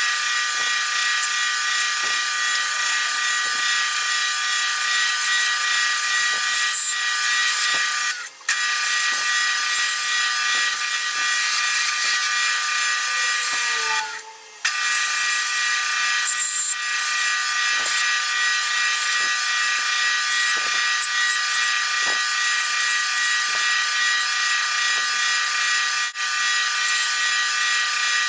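Wood lathe running with tools working a spinning post oak pen blank, the audio sped up eight times so the motor hum sits high and steady under a hiss of cutting. The sound drops out briefly twice, about a third of the way and halfway through.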